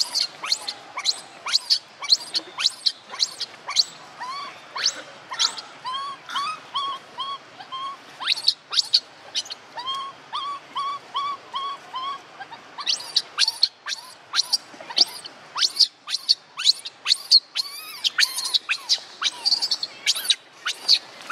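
Animal calls: sharp, very short high chirps repeating two to three times a second, with a run of short arched call notes, three or four a second, in the middle.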